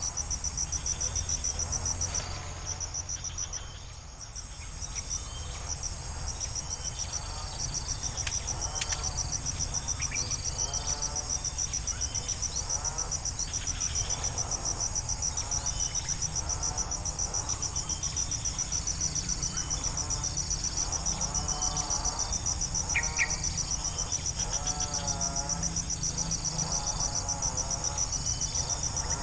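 A continuous high-pitched insect trill, steady and rapidly pulsing, which drops out for about two seconds near the start and then resumes.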